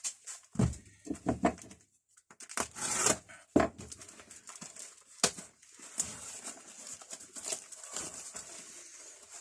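A few sharp knocks with rustling in between, the sounds of tools and their packaging being handled on a bench.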